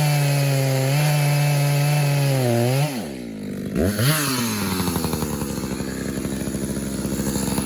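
Echo CS-590 two-stroke chainsaw running at a steady high pitch in a firewood cut, then dropping off throttle about three seconds in, revving up and down once, and settling into a pulsing idle. The owner says the carburettor is set rich and the idle a little high.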